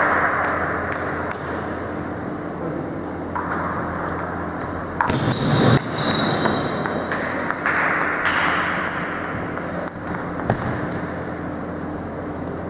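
Table tennis ball clicking off rackets and the table in a rally, with many sharp ticks echoing in a large sports hall. A louder knock comes about five and a half seconds in.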